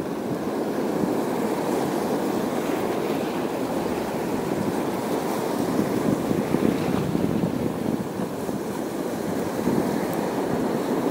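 Sea waves washing against a rocky shore, a steady rush that swells and eases, with wind buffeting the microphone.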